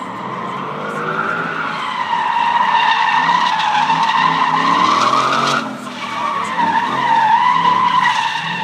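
Ford Mustang drifting, its tires squealing in a long wavering tone over the running engine. The squeal swells over the first two seconds, breaks off briefly a little past halfway, then picks up again.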